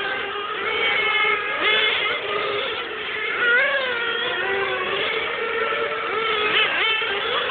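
Several 1/8-scale nitro RC race cars' small glow-fuel engines running at high revs, their buzzing pitch overlapping and rising and falling as the cars brake into and accelerate out of the corners, with quick rising sweeps near the end.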